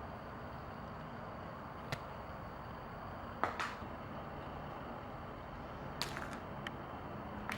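Steady background hiss with a few scattered sharp clicks or taps, the loudest about halfway through.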